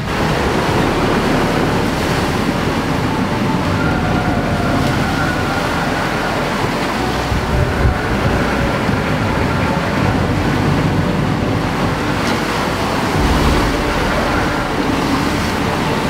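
Rough open sea and strong wind heard from a sailing yacht's cockpit: waves rushing and breaking against and past the hull, with wind on the microphone, as one steady, dense rush.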